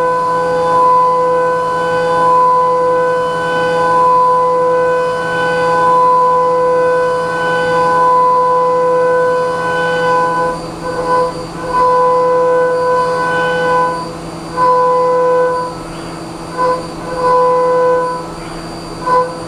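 CNC milling cutter whining at one steady pitch as the spindle cuts an enclosure part on a Haas Minimill 2. The tool is in continuous cut for about ten seconds, then the whine breaks into short stretches as the tool enters and leaves the cut.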